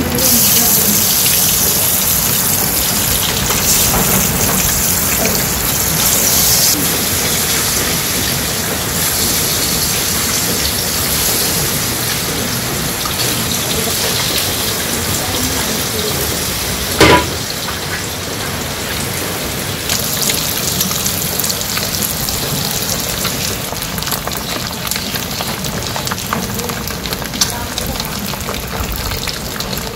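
Halved boiled eggs sizzling steadily in hot oil in a nonstick karahi, with a single sharp knock about seventeen seconds in.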